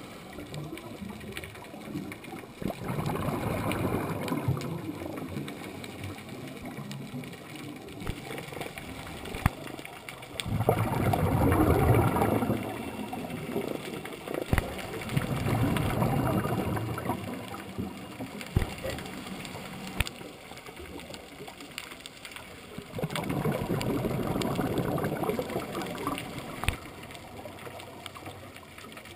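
Scuba diver's exhaled breath bubbling out of the regulator, heard underwater: four long bubbling rushes of a few seconds each, coming every six to eight seconds. Between them is a low steady hiss with scattered sharp clicks.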